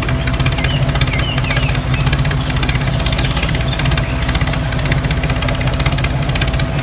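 Tractor engine running at a steady idle, an even low rumble.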